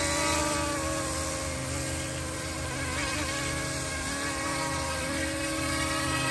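Small electric RC toy helicopter's motor and rotor running with a steady buzzing whine as it hovers, its pitch wavering slightly.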